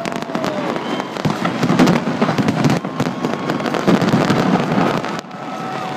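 Fireworks display: a dense, continuous run of cracks and bangs from bursting aerial fireworks, dipping briefly a little after five seconds in.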